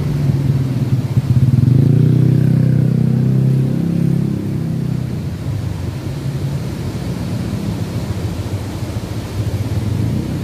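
A motor vehicle engine passes, swelling to its loudest about two to four seconds in and then fading. Under it runs a steady low rush of the river flowing through the weir.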